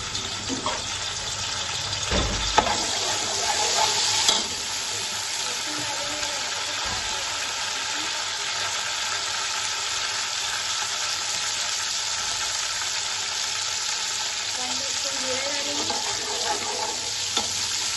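Chopped garlic sizzling in hot oil in a metal pot, stirred with a metal slotted spoon. The sizzle is louder and busier in the first few seconds, with a couple of sharp clicks, then settles to a steady sizzle.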